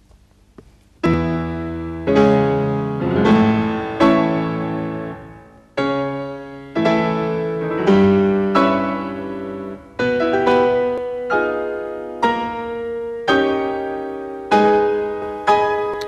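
Slow solo piano music begins about a second in. Chords are struck one after another, each left ringing and fading before the next.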